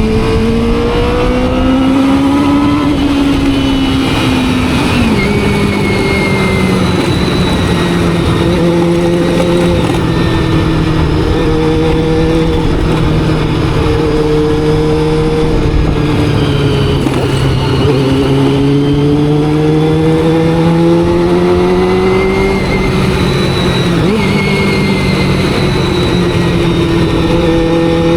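Honda CBR400RR's carbureted inline-four engine running on the road, its note climbing under throttle near the start and again about two-thirds through, and dropping back in between, with wind rushing past.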